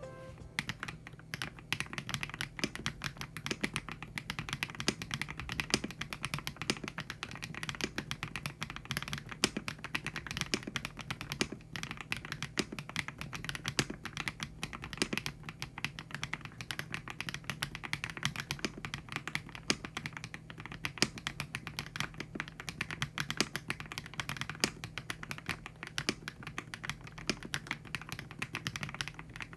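Continuous typing on a YUNZII YZ98 mechanical keyboard fitted with factory-lubed HMX Cheese linear switches: a dense, steady stream of keystroke clacks, with occasional louder strokes standing out.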